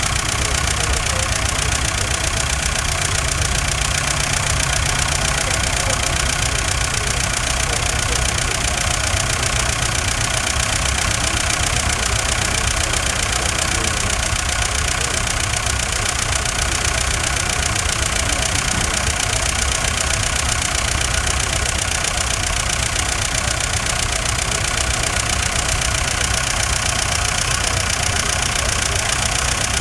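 Farm tractor's diesel engine running steadily, working a tractor-mounted excavator arm.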